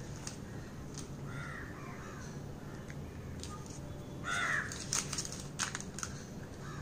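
A bird calling twice, the second call louder about four seconds in, followed by a few light clicks and rustles as a plastic bottle cap cuts rolled dough on butter paper.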